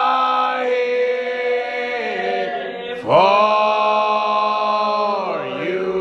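Slow worship chorus sung with long held notes. One phrase fades out about two and a half seconds in, and a new phrase starts about three seconds in and is held.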